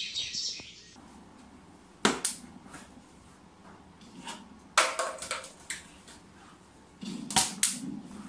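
A handful of sharp clicks and taps, scattered irregularly against a quiet room. The loudest come about two seconds in, about five seconds in, and as a quick pair near the end.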